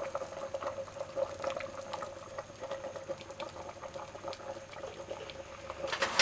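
Water at a full boil in an open pot of green bananas, yam and pumpkin: steady bubbling with many small pops. A brief louder knock comes right at the end.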